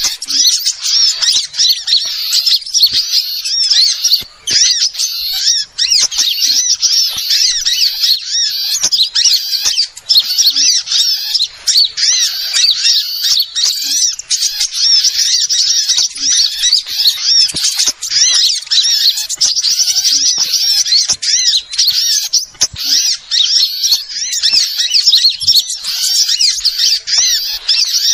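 Dense, continuous chorus of many small birds' high-pitched chirps and twitters overlapping without a break, a bird-luring recording made to draw in small birds such as sunbirds.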